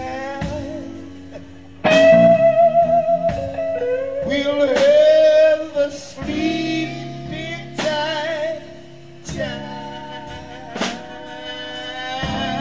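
Live blues-rock trio playing an instrumental passage: an electric guitar solo of long, bent notes with wide vibrato over bass guitar and drums. The band comes in loudly about two seconds in.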